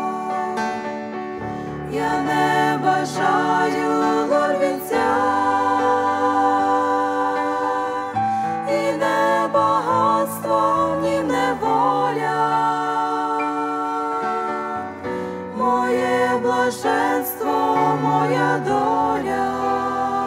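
A small group of women singing a hymn in Ukrainian with grand piano accompaniment; the voices swell fuller about two seconds in.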